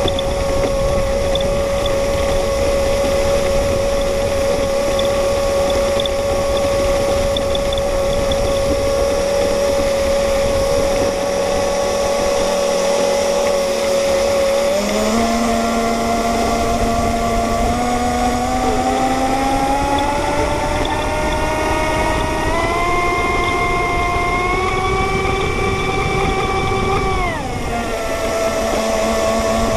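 Radio-controlled racing boat's motor heard from on board: a steady whine that jumps up about halfway through, climbs in steps, then drops back sharply near the end, with water and wind rushing past the hull.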